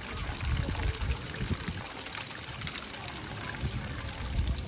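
A jet of water pattering and splashing onto a wallowing Indian rhinoceros's head and into a shallow muddy pool, a steady trickling spatter. Low rumbles come and go underneath, strongest about a second in and again near the end.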